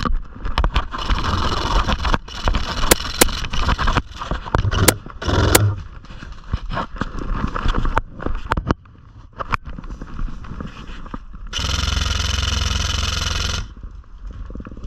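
A player moving forward on foot through brush, with rustling gear and footsteps, and many scattered sharp clicks. About two seconds of loud, steady rushing noise come near the end.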